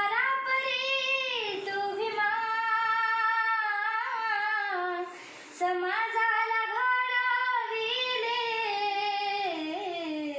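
A young girl singing a Marathi song unaccompanied, in long drawn-out held notes, breaking off briefly for breath about halfway through.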